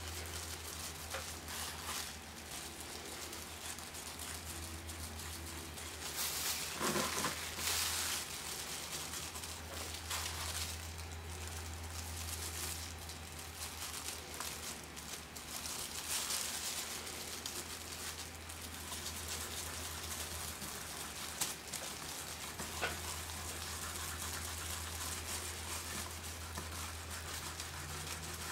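Loose plastic disposable gloves crinkling while a gloved fingertip rubs metallic wax paste onto a painted base, a soft irregular rustle that comes louder in spells, over a steady low hum.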